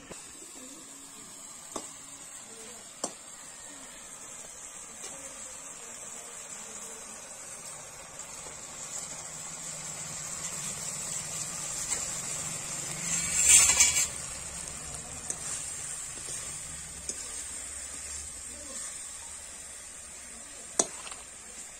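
Onion-and-spice curry base sizzling in a steel wok over a wood fire, a steady hiss, with a few sharp clicks of the steel spatula against the pan and a brief louder rush of noise about two-thirds through.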